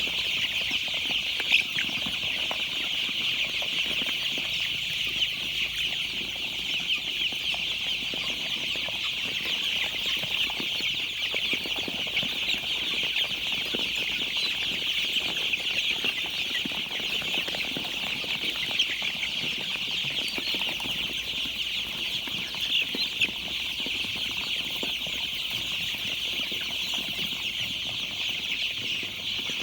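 A flock of young chicks peeping continuously in a dense, high-pitched chorus, with a few faint knocks.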